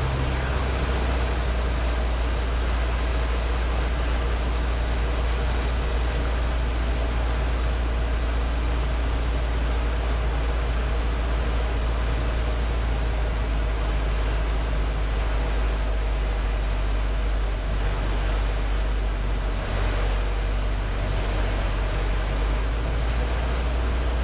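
Robin DR400 light aircraft's piston engine and propeller droning steadily, heard inside the cockpit with rushing airflow, on the approach to land.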